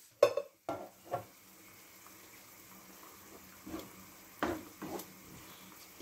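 Wooden spoon stirring onions, tomatoes and peppers in a frying pan, knocking sharply against the pan several times over a faint sizzle of frying.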